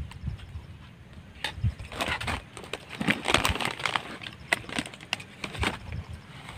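Eating and handling food: a spoon clicking and scraping against a bowl, with crinkling of plastic food packaging, as a run of small sharp clicks and crackles.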